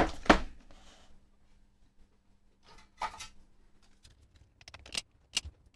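Handling clicks and knocks of a bench multimeter's case as its bottom cover is put back on: two sharp knocks at the start, a brief scrape about three seconds in, then a run of light clicks near the end. A faint steady hum runs underneath until about four seconds in.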